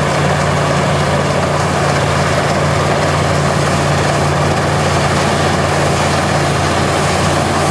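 Massey Ferguson 40 combine harvester running steadily at working speed while cutting wheat, a constant low engine drone under a dense rushing clatter of the threshing machinery.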